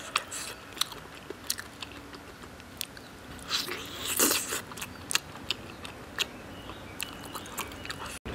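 Close-up eating sounds of a person biting and chewing soft braised spicy lamb trotter meat off the bone: wet smacks and sharp little clicks of lips and teeth, with a louder bite and tear about four seconds in.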